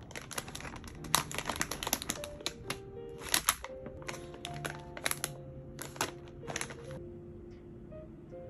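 Foil-lined snack bag crinkling and crackling in irregular bursts as it is held open and handled, the loudest a little after one second and around three and a half seconds, stopping about seven seconds in. Soft background music with held notes runs underneath.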